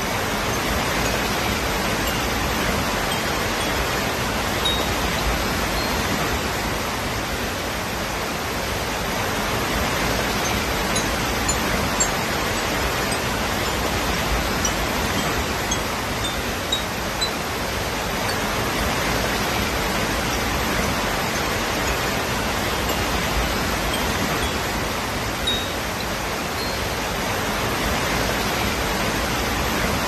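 Waterfall cascading over rocks: a steady, even rush of falling water.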